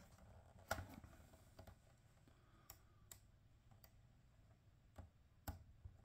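A handful of faint, sharp plastic clicks and taps from hands working on an automotive instrument cluster, setting the gauge needles back onto their shafts.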